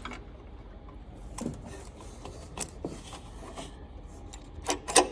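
A few scattered light clicks and knocks, the loudest near the end, as a Prius inverter water pump and its hoses and bracket are handled and worked loose by hand in the engine bay, over a faint low hum.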